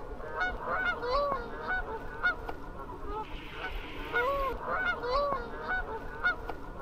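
A flock of Canada geese honking as they fly overhead: many overlapping honks, two or three a second.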